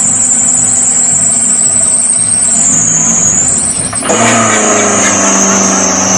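A small hatchback car's engine running just after starting as the car begins to pull away, under a loud, high, wavering whine that drops in pitch about four seconds in.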